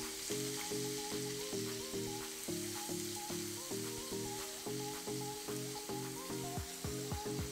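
Garlic and ginger-garlic paste sizzling in hot oil in a nonstick kadai, stirred with a silicone spatula. Background music with an even run of short notes, about three a second, plays underneath.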